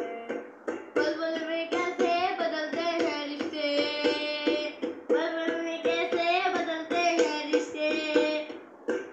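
A child singing a melody while slapping out a steady beat, about four taps a second, with his hands on an upturned stainless steel bowl used as a drum. The voice drops out briefly near the middle and near the end, leaving only the taps.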